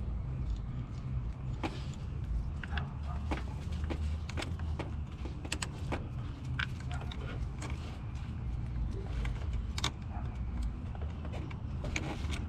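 Scattered light metallic clicks and taps as a brass battery terminal connector is handled and hooked onto a car battery post, over a steady low rumble.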